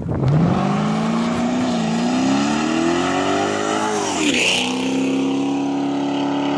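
Ford Mustang GT's 4.6 L V8 with a BBK X-pipe and Flowmaster 10 mufflers, loud and raspy, accelerating hard from a launch: the revs climb steadily, drop sharply at an upshift about four seconds in with a brief hiss, then climb again in the next gear.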